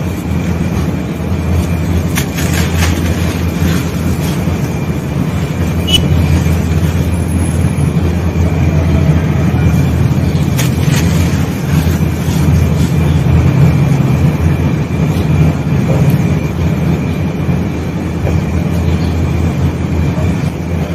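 Hands crushing and crumbling damp sand-and-cement balls: a continuous low, gritty rumble of grinding grit, with a few sharper crunches and crackles from time to time.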